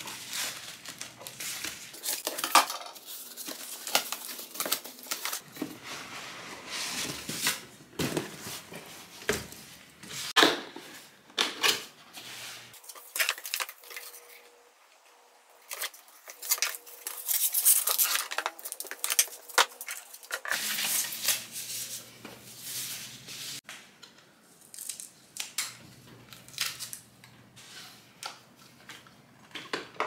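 Close-up handling sounds of small objects: a string of clicks, taps and rustles, several short clips cut together.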